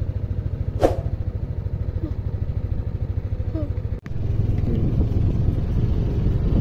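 A small engine running with a steady, rapid low pulse. About four seconds in the sound cuts off and gives way to a louder, rougher low rumble.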